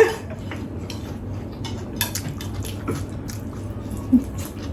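Utensils clicking and scraping on plates while noodles are eaten and chewed, in a string of scattered short taps over a low steady hum.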